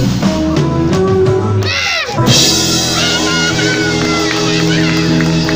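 Rock band playing live on stage with acoustic guitar: a falling swoop about two seconds in, then a sustained, ringing chord.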